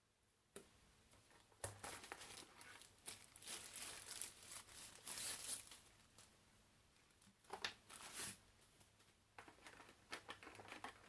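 Packaging crinkling and rustling as a smartwatch box is opened and its contents handled, in irregular spells, with a couple of sharper knocks about eight seconds in.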